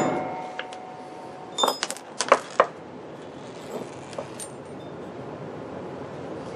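Ringing tail of a ball-peen hammer blow on a steel socket driving the field coil pole piece out of a Philco 90 speaker. About two seconds in come a few quick metal clinks and rattles as the hammer and socket are put down on the concrete floor, then faint handling sounds.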